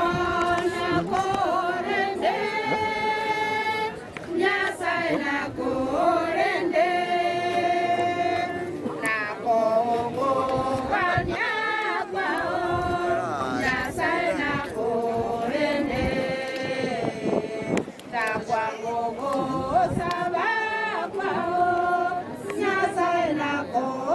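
A group of voices, women's among them, singing together unaccompanied in a slow melody of long held notes.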